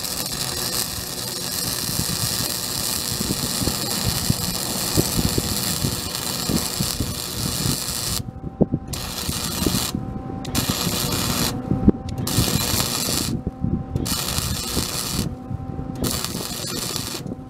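Stick-welding arc burning on a thick steel bumper bracket: a steady crackling hiss. About eight seconds in, the arc starts breaking off for a moment and restarting roughly every two seconds, with a faint steady hum heard in each short pause.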